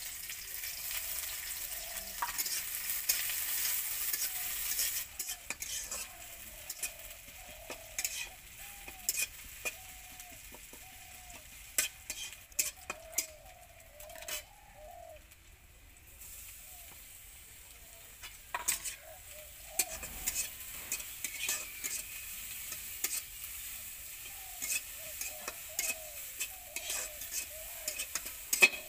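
Chopped onion frying in hot oil in a kadai, sizzling hard for the first few seconds after it goes in, then more gently. A metal spatula stirs it, clicking and scraping against the pan.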